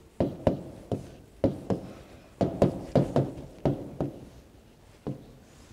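Stylus tapping and knocking on a tablet screen while handwriting: about a dozen short, sharp taps at an uneven pace, quiet in between.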